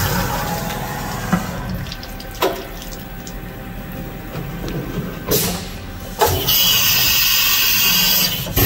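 CNC vertical machining center running with flood coolant spraying, its steady machine tone dying away in the first couple of seconds. Then come several sharp clunks of the tool changer, and a loud rushing hiss that lasts about two seconds near the end, closed off by another clunk.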